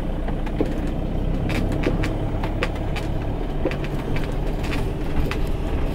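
Camper van engine running steadily, heard from inside the vehicle, with scattered light clicks and rattles.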